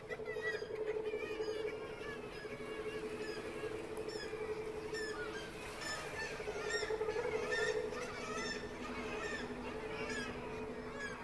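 Many birds chirping and calling over a steady hum.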